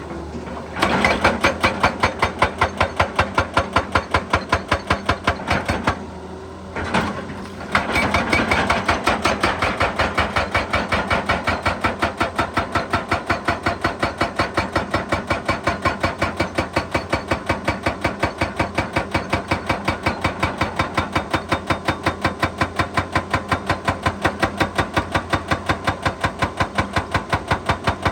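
Excavator-mounted hydraulic breaker hammer pounding rock, a fast even stream of blows about four a second with the machine's engine running under it. The blows stop briefly about six seconds in and start again soon after.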